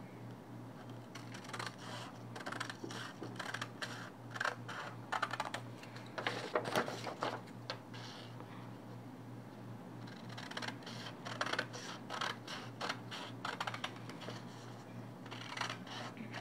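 Scissors snipping through kraft pattern paper in irregular runs of short, crisp cuts, with a lull about halfway through. A faint steady low hum lies underneath.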